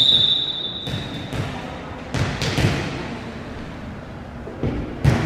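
Referee's whistle blown once, its tone fading over the first second or so, then several thumps of a volleyball on the gym floor, with a louder hit about five seconds in.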